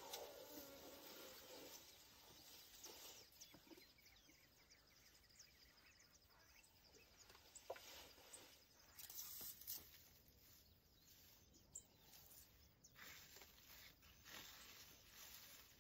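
Near silence with faint scattered crackles and rustles: an African elephant bull tearing up grass with his trunk as he feeds.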